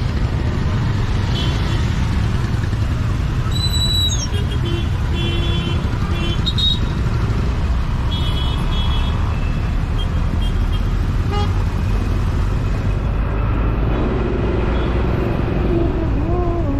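Motorcycle and car traffic running steadily in stop-and-go city riding, with short vehicle horn toots sounding several times.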